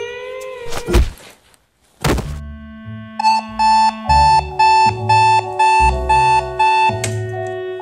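Thomson digital alarm clock going off at 6:00: a quick run of about eight electronic beeps, two to three a second, that stops with a thump near the end. Two sharp hits come in the first two seconds, and music plays underneath.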